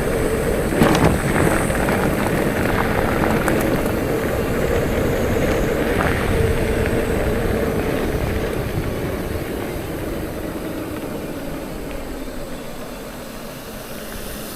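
Riding noise from a bicycle: wind rushing over the microphone and tyres rolling, with a faint steady hum and a few knocks about a second in, easing off toward the end.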